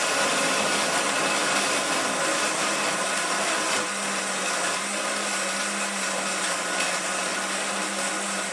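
Electric blender running, loud and steady, blending fresh watermelon with strawberry lemonade and mezcal. A steadier motor hum comes in about halfway through.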